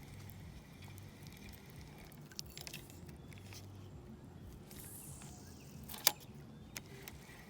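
Fishing rod and reel being worked from a kayak during a cast: a few light reel clicks, a swish that falls in pitch about five seconds in, then one sharp click about a second later.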